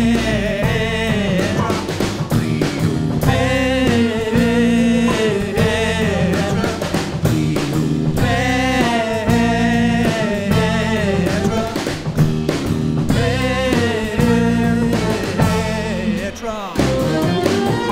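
A small rock band playing live: a saxophone plays a bending melody over electric and acoustic guitars and a drum kit beat.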